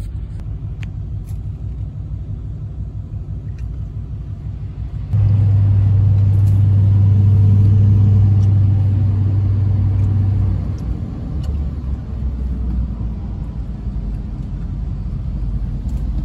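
Low rumble of a truck driving, heard from inside the cab. A loud, steady low hum starts suddenly about five seconds in and stops about five seconds later.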